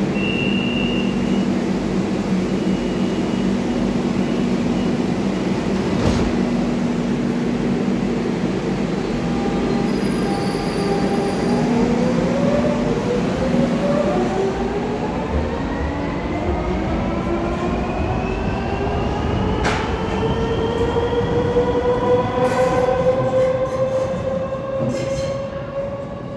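Metro train humming at the platform, then pulling out: the electric traction motors' whine rises steadily in pitch as it accelerates away into the tunnel. There is a short high tone near the start.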